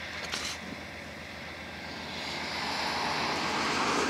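Several GE diesel locomotives running as they lead a train, heard as a broad drone that grows louder from about two seconds in as they approach.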